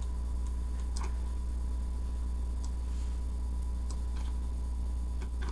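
Computer mouse clicking a few times, sharp single clicks about a second in, near four seconds and near the end, over a steady low hum in the recording.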